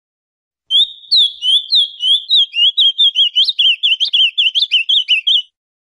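Ultramarine grosbeak (azulão) singing one song of about five seconds, starting about a second in: a run of clear, sweet whistled notes, the first ones longer and spaced apart, then coming quicker and choppier toward the end before it stops abruptly.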